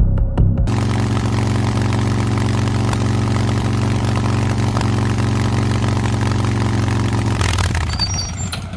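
Small motorcycle engine running at a steady low speed as the bike rolls in, then switched off about a second before the end, the sound dying away.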